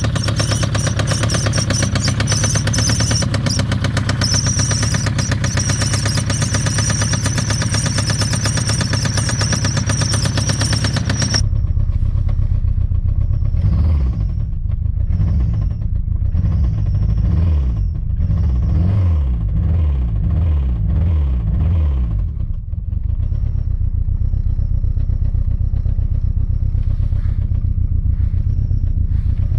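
Citroën ZX 1.9 engine running with a rapid knocking clatter and a thin high squeal. About eleven seconds in the sound turns abruptly duller, and the engine note rises and falls several times before settling into a steady run.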